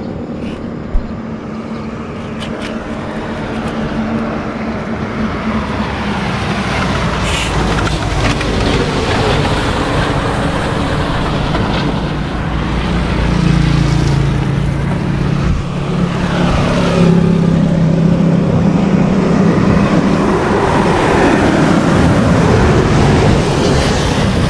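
Road traffic passing close by: motor vehicle engines and road noise, growing louder through the first half, with a steady engine hum for several seconds in the middle.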